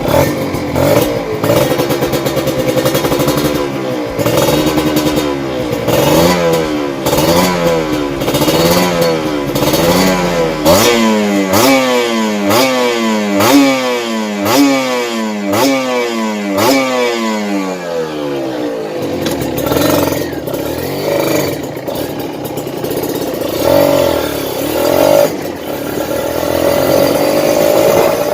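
Kawasaki Ninja RR two-stroke single with an aftermarket exhaust being revved in a series of throttle blips. The blips come quicker and climb higher from about eleven seconds in, then the engine settles nearer idle with a few more blips near the end. The revving tests whether rejetting the carburettor (130 main jet, 48 pilot jet) has cured the rough running ('ngorok') that began after the exhaust was changed.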